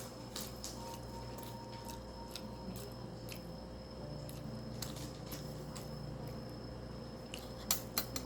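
Close-up eating sounds: soft wet mouth clicks while chewing fried rice, with a few louder sharp clicks near the end.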